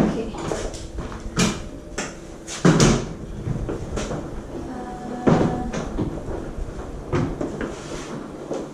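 Knocks and clunks of a front-loading washing machine's round glass door being swung and bumped while laundry is pushed into the drum, about six separate knocks.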